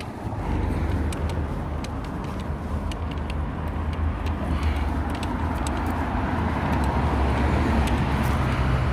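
Road traffic on a town street: a steady low rumble of car engines and tyres that grows slowly louder, with faint light ticks over it.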